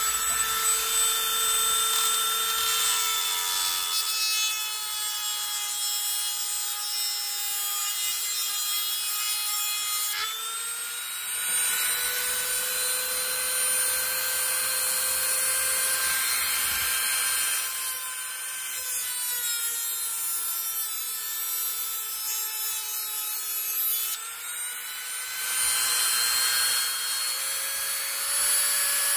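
Power cutting tool running continuously as it cuts through overlong metal nails. A high motor whine dips slightly in pitch as it bites, over a harsh grinding hiss that swells several times.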